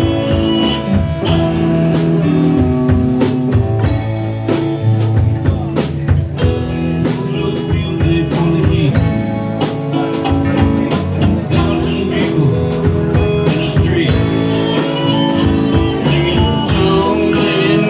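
Band music: guitar over a drum kit keeping a steady beat, an instrumental stretch with no clear singing.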